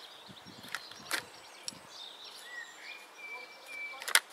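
Hands firming soil around planted lettuce seedlings and handling a plastic seedling tray and trowel: soft rustling and light clicks, with a sharp plastic click about four seconds in.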